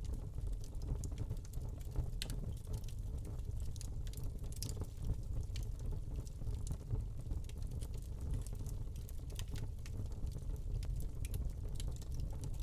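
Wood log fire burning in a fireplace: a steady low rumble of flames with frequent small, irregular crackles and pops.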